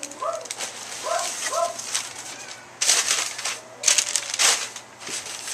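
Packing paper crinkling and rustling as items are unwrapped from a box, in two loud bursts about three and four seconds in. Before that, in the first two seconds, an animal gives several short calls in quick succession.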